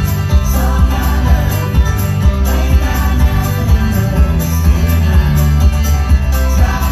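A folk band playing live through a PA: acoustic guitar, keyboard and bass over a steady drum beat, with a sung vocal.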